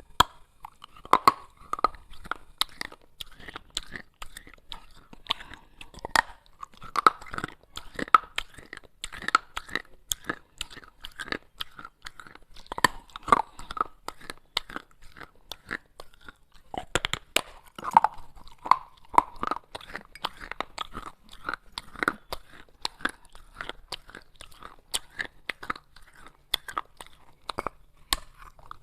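Pieces of baked clay pot being bitten and chewed, with sharp cracks and crunches coming in quick, irregular succession.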